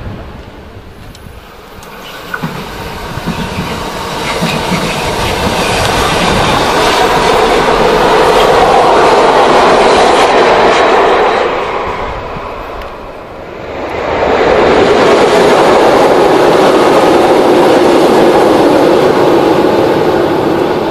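Electric train running over the viaduct, its wheels clattering on the rail joints. It grows steadily louder, dips briefly about two-thirds of the way through, then comes back loud as it passes.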